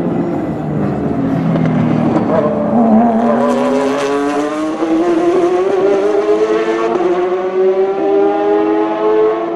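Two GT race cars, a Ferrari F430 GT V8 and a Porsche 911 GT3 RSR flat-six, pass close by, their engine note dropping in pitch. About three seconds in they accelerate hard away, the note climbing steadily for several seconds as they pull up the straight.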